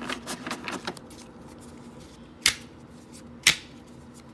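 Tarot cards being handled and laid down: a quick run of light card clicks in the first second, then two sharp card snaps about a second apart.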